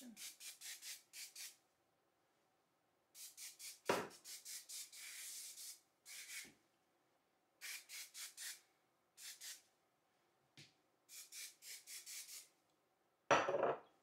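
Color Wow aerosol hairspray sprayed onto hair in runs of short, quick hisses, with one longer spray about five seconds in. A single knock comes about four seconds in, and a short vocal sound near the end.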